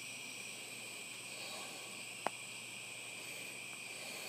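Steady high-pitched chorus of insects, like crickets, trilling in the woods, with a single sharp click a little over two seconds in.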